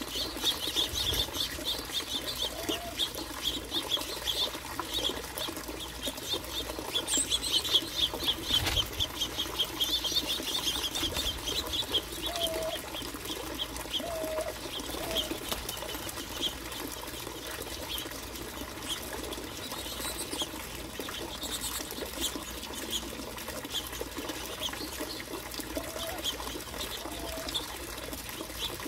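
A flock of finches feeding: rapid short chirps and wing flutters, densest over the first twelve seconds or so, then thinning out.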